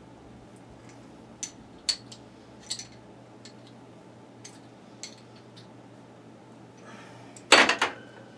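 Light metallic clicks and clinks from hand-tapping a drilled hole with a tap and tap wrench, then a louder metal clatter with a short ring near the end. A steady low hum runs underneath.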